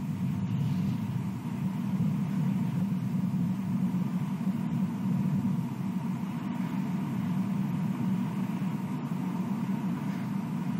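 Steady low rumble of outdoor background noise with a faint, steady high tone running under it.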